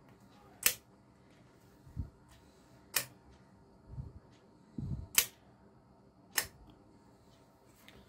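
Fingers pressing keys on a 4x4 membrane keypad and handling it: four sharp clicks a second or two apart, with softer low thumps between them.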